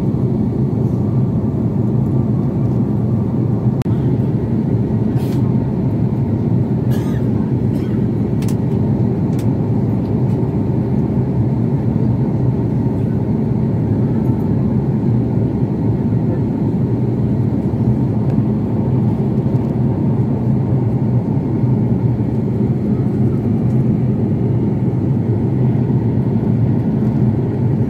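Steady airliner cabin noise in flight: the even, low rumble of the jet engines and airflow heard from a window seat. A few faint clicks come between about five and ten seconds in.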